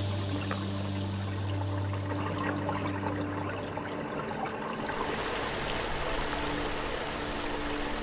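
Shallow stream water burbling and trickling over stones. About five seconds in it becomes a fuller, louder rush of water over a small rapid.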